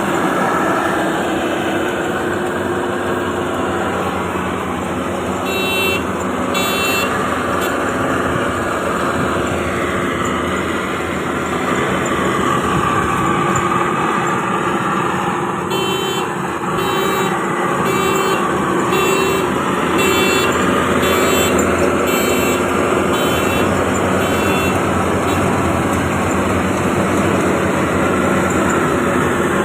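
Rice combine harvester engine running steadily under work, with a series of short high-pitched beeps now and then.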